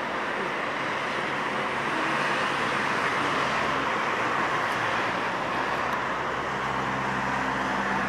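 Road traffic running steadily, a constant rush of tyres and engines; about six seconds in, a vehicle's low engine hum comes in under it.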